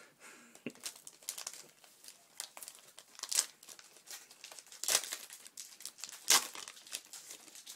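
Foil Pokémon card booster pack being torn open and crinkled by hand: a run of sharp crackles with a few louder rips.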